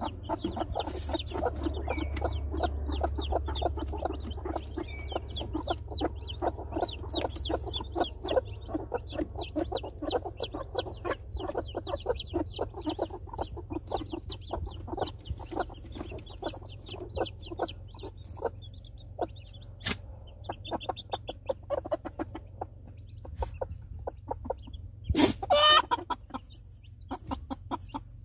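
Two- to three-day-old chicks peeping busily over the low clucking and growling of broody hens warning the roosters away from their brood. The peeping thins out about two-thirds of the way through, and near the end one louder call lasting about a second stands out.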